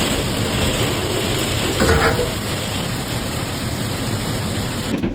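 Hail and heavy rain pelting down in a dense, steady hiss, with a brief louder burst about two seconds in. The sound cuts off suddenly just before the end.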